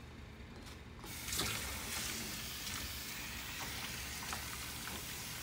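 A kitchen faucet's pull-down sprayer comes on about a second in and sprays water onto a beagle puppy's soapy coat in the sink, a steady hiss of spray.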